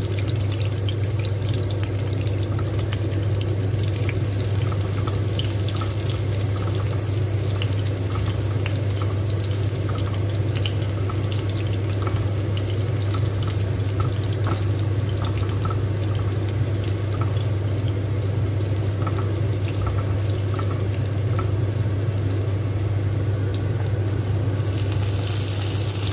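Sliced garlic frying in hot oil in a wok: many small crackles and pops over a steady low hum. Near the end a louder, hissing sizzle starts as dried red chillies go into the oil.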